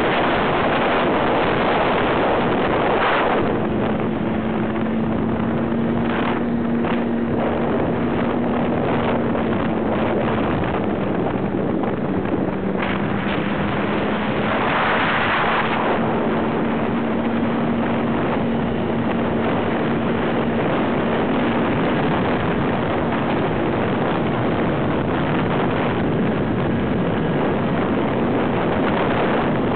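Snowmobile engine running at speed under a heavy rush of wind over the microphone, a steady drone whose pitch dips briefly near the middle.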